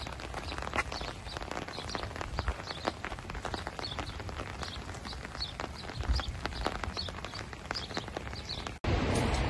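Rain falling in scattered large drops, heard as many irregular sharp taps close to the microphone. Near the end the sound cuts off briefly and gives way to a louder, steady rain hiss.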